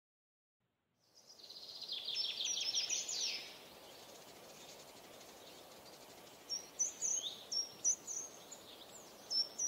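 Songbirds singing, fading in about a second in: a fast trill of repeated high notes, then scattered short high chirps over a faint steady hiss.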